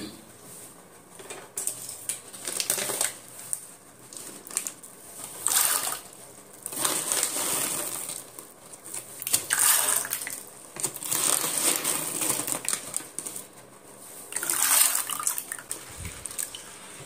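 Dry chana dal (split chickpeas) poured into a plastic bowl of water, then stirred and rubbed by hand in the water to wash it before soaking. The sound comes in several separate bursts with short pauses between.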